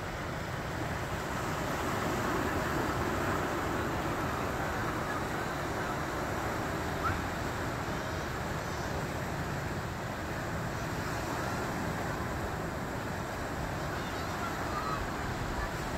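Ocean surf washing over a rocky shore: a steady rushing noise.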